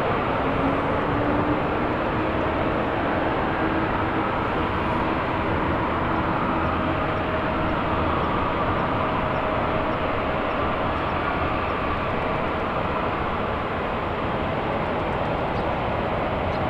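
Jet airliner engines running, a loud, steady, even noise with faint whining tones in it, one of them rising slightly in pitch about half a second in.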